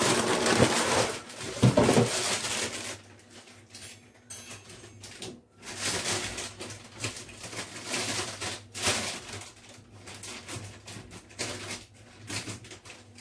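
Plastic bag crinkling and rustling as it is handled along with a cardboard cereal box. The rustling is loudest for the first couple of seconds, then comes back in short scattered rustles.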